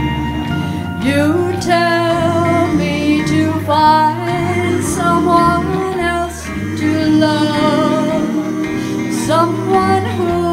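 A woman singing a slow song with long, wavering held notes, over live band accompaniment.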